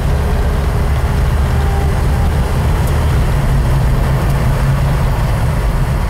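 The 1971 Plymouth Road Runner's V8 engine running as the car drives, heard from inside the cabin as a steady low rumble.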